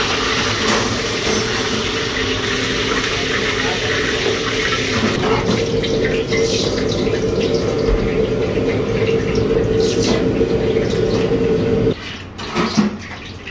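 Commercial gas wok burner running at full flame, a steady rushing noise with a low hum. It cuts off suddenly about twelve seconds in as the flame is turned down, followed by a few light knocks of the wok being handled.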